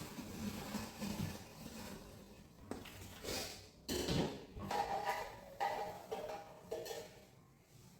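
Irregular knocks and clatters of household items being handled, some with a brief ringing tone.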